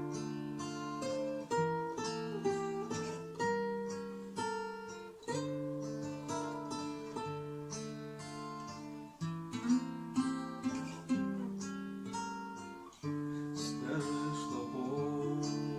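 Acoustic guitar music without singing: plucked and strummed chords ringing on in a steady run of notes, with a short break in the sound at about thirteen seconds in.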